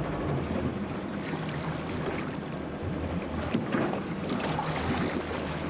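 Ambient sound aboard a motor boat at sea: a steady low engine hum under the wash of water and wind noise on the microphone.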